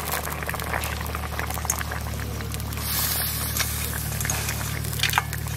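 Curry broth boiling hard in a wide aluminium wok with greens just added: a dense crackle of bubbling and popping over a steady low hum, with a brief hiss about three seconds in and a couple of sharper clicks near the end.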